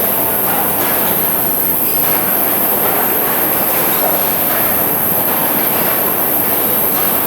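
Machine running steadily with a dense, continuous clattering noise and a constant high-pitched whine.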